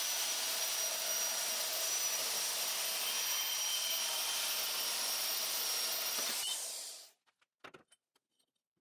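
Wen portable band saw running and cutting through steel tubing: a steady high-pitched whine over the hiss of the blade in the metal. It winds down and stops about seven seconds in, followed by a few faint clicks.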